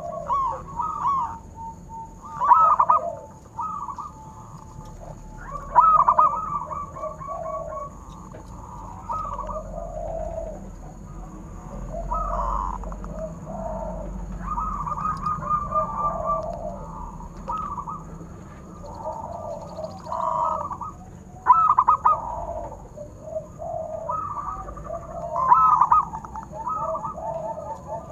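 Zebra doves (perkutut) cooing, several birds overlapping, each phrase a run of short rapid trilled notes repeated every second or two.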